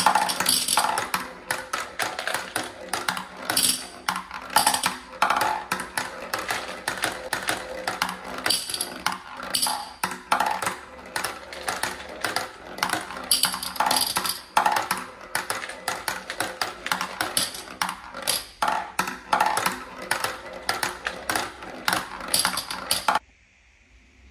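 Glass marbles rolling and clacking down the plastic zigzag ramps of a wooden ramp-racer toy and clinking into a glass jar at the bottom: a rapid, uneven stream of ticks and clicks that stops suddenly near the end.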